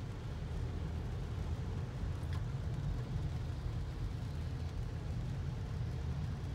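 Steady low rumble of a car's engine and road noise heard from inside the cabin.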